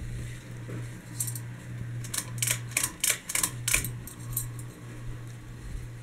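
GEV ceiling fan running: a steady motor hum that pulses about once a second. A quick run of sharp clicks and rattles comes about two to four seconds in.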